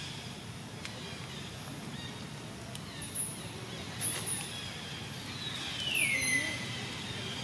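Outdoor ambience: a steady low rumble with a few short, very high chirps, and one high call that glides downward in pitch for about a second, about six seconds in.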